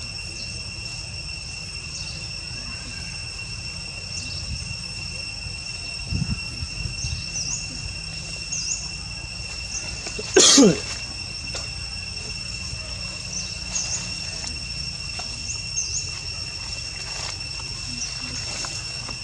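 Insects droning steadily in two even high tones, with scattered short high chirps over the top. One loud, brief sound cuts in about halfway through.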